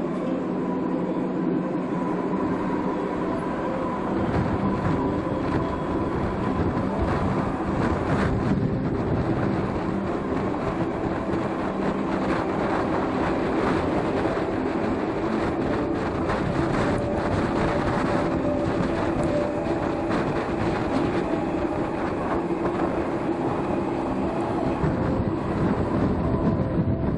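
Zillertal Railway steam train running along the narrow-gauge track, heard through an open carriage window, with the wheels clattering over the rails. The low rumble fills in and grows about four seconds in as the train gets under way.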